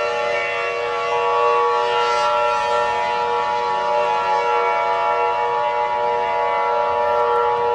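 A civil-defense-style siren held at a steady pitch, sounding as a chord of several unchanging tones. A higher tone joins about a second in.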